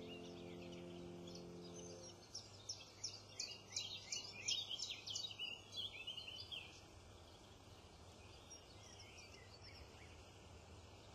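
Background music fading out over the first two seconds, then a songbird singing a quick run of high chirps for about five seconds, then faint outdoor background noise.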